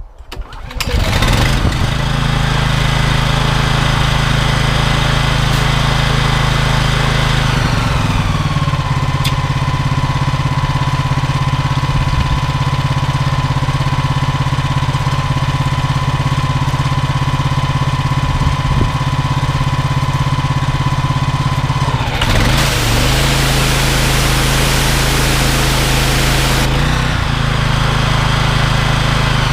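Honda GX390 single-cylinder petrol engine driving a belt-driven pressure washer pump: it starts about a second in and runs steadily, with a higher whine that drops in pitch about eight seconds in. Near the end a loud hiss of high-pressure water spray comes in for about four seconds and then stops.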